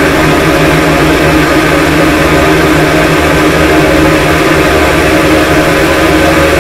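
Harsh noise wall: a loud, unchanging wall of dense distorted noise with steady droning tones buried in it.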